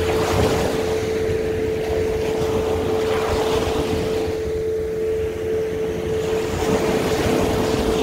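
Small sea waves breaking and washing up a sandy beach, the surf swelling about three times, over a steady hum.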